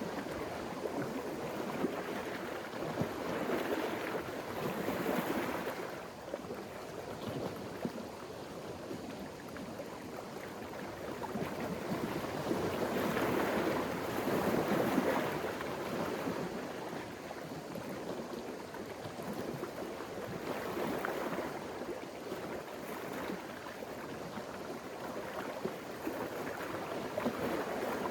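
Waves washing in, a rushing noise that swells and fades every several seconds, with some wind.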